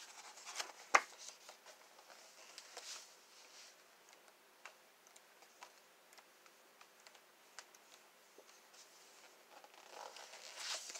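Pages of a large glossy book being handled: faint rustles and small ticks, a sharp tap about a second in, and a page turning near the end.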